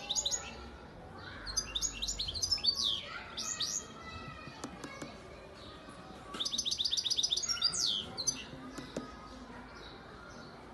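European goldfinch singing in bursts of quick twittering notes that rise and fall. The loudest burst, a little past the middle, is a fast run of about ten repeated notes.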